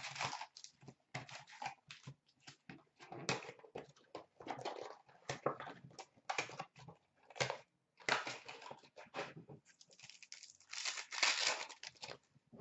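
Cardboard box of O-Pee-Chee Platinum hockey card packs being torn open, with the packs and their plastic wrapping crinkling and tearing as they are pulled out and handled, in irregular rustling bursts.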